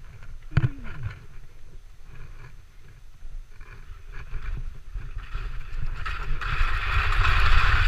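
Wind buffeting the microphone over the hiss of skis sliding on snow; the ski hiss swells loud over the last two seconds.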